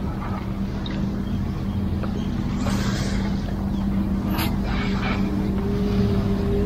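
A motorboat engine drones steadily offshore, its pitch climbing slowly over the last couple of seconds.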